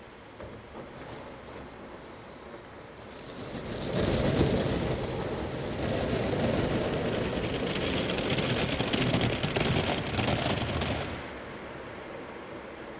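Automatic car wash heard from inside the car: water spray starts pelting the body and windows about four seconds in, a loud dense spatter, and falls away about eleven seconds in, leaving a quieter steady wash noise.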